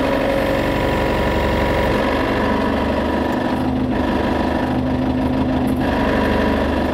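Telehandler diesel engine running at idle, heard from inside the cab, with a steady rattle under the engine note. The owner puts the rattle down to a slightly loose drive shaft between the gearbox and the engine.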